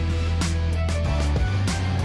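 Background music with a steady bass line and a beat.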